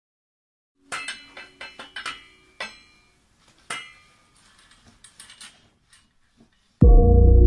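Metal tools and BMX frame parts clinking and clanking together in an irregular series of sharp, ringing knocks that thin out, then loud music with a heavy bass comes in suddenly near the end.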